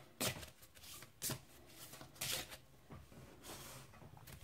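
A deck of Romantic Tea Cup Wisdom oracle cards being shuffled by hand: several short papery swishes and flicks of the cards sliding against each other.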